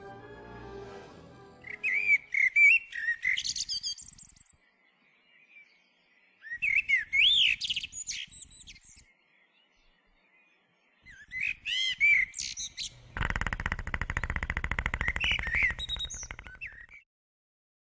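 Music fades out, then a songbird chirps and trills in three short bursts with near silence between them. Near the end a low, rapid buzzing rattle comes in under the chirps for about four seconds, then everything cuts off at once.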